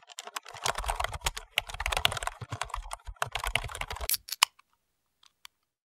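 Keyboard typing: a fast run of key clicks that stops about four and a half seconds in, followed by a few lone keystrokes.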